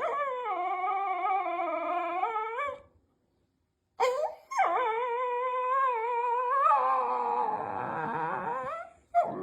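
Dog howling: two long, wavering howls, with a short yelp between them about four seconds in.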